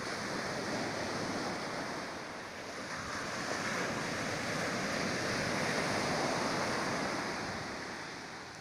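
Sea surf breaking and washing up a sandy beach: a steady rush of foaming water that swells twice, loudest about five to six seconds in, and fades near the end.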